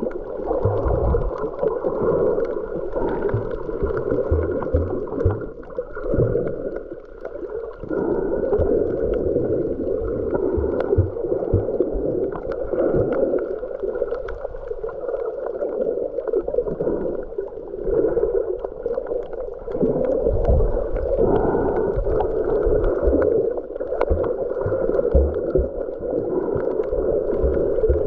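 Muffled underwater sea noise while snorkeling: steady sloshing and gurgling of water, with scattered low thumps.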